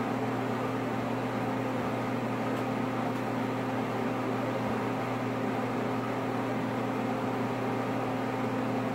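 Steady low electrical hum with an even hiss over it, unchanging, as from a running appliance or fan.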